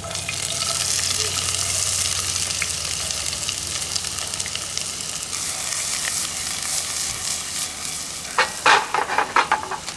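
Onion sizzling as it fries in a hot pan, a steady hiss that is loudest in the first few seconds. Several sharp knocks come near the end.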